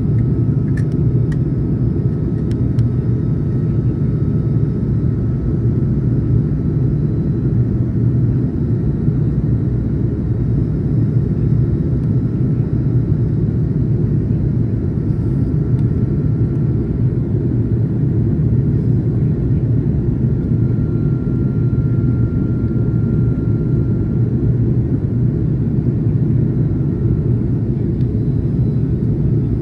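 Steady in-flight cabin noise of an Airbus A330-300, heard from a window seat beside the engine: a deep, even rumble of engine and airflow with a faint steady whine above it.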